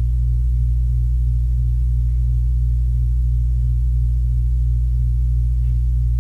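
A steady, loud low hum with no change in pitch or level.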